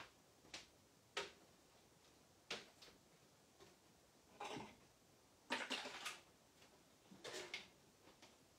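Faint scattered knocks and clatters of objects being handled and moved about in a small room, with a louder run of clattering about five and a half seconds in.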